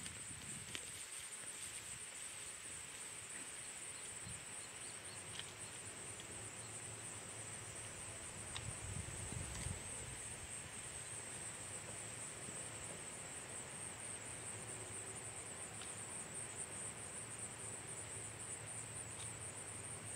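Faint, steady high-pitched chorus of insects in a summer field, with a few faint clicks.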